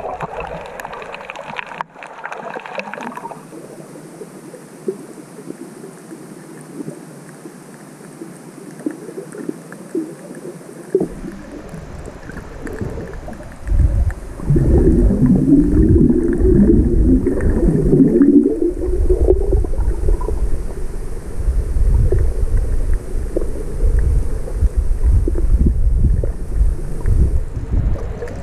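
Muffled water noise picked up by a camera held underwater: a low rumble with gurgling and burbling. It grows much louder from about halfway through.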